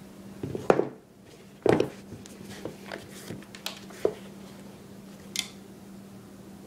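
Canvas skate shoes handled on a wooden tabletop: a few knocks as the shoe bumps the wood, the loudest about a second and two seconds in, with lighter clicks and rubbing in between, over a steady low hum.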